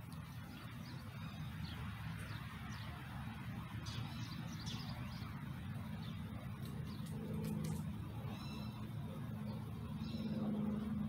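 Birds chirp a few times over a steady low hum, which grows louder near the end. A few faint crisp clicks come about two-thirds of the way through.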